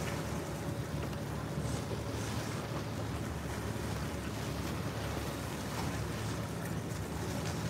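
Wind buffeting the microphone, with small waves splashing against the rocks at the foot of a seawall.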